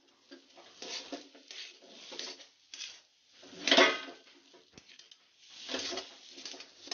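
Metal spoon scraping and knocking against an iron kadhai while stirring a thick mashed potato mixture as it fries. The strokes come irregularly, with the loudest scrape a little past halfway.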